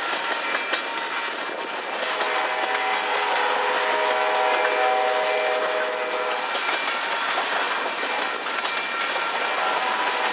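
A train passes close by, its wheels clacking steadily over the rail joints. A locomotive horn sounds one long blast starting about two seconds in and lasting about four seconds.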